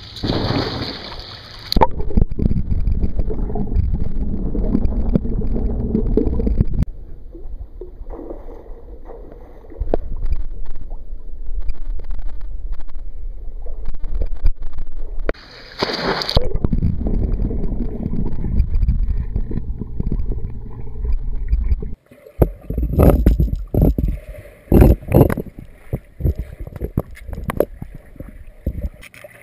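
Pool water heard through a camera at and under the surface: a low, muffled churning and gurgling as a boxer dog plunges in and swims underwater. The sound changes abruptly several times, and near the end there is a run of sharp splashes.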